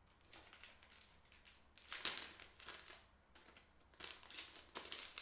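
Faint crinkling and rustling of packaging being handled, in a few short spells.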